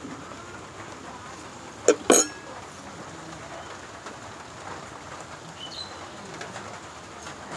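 Two sharp clicks a fifth of a second apart, about two seconds in, over a steady hiss of light rain. A short bird chirp comes near the end.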